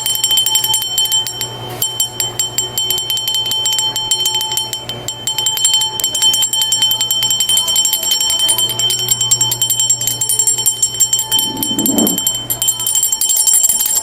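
A counter service bell pressed rapidly and repeatedly, a fast run of dings that keeps the bell ringing continuously.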